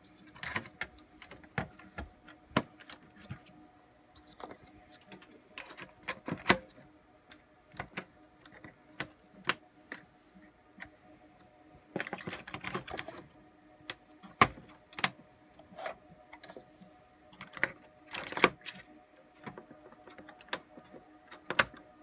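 Scattered sharp clicks and knocks of plastic and metal parts being handled and pressed into place inside an HP ProLiant DL360e Gen8 server chassis, around its hot-plug fan modules. Two denser bursts of handling noise come about twelve and eighteen seconds in, over a faint steady hum.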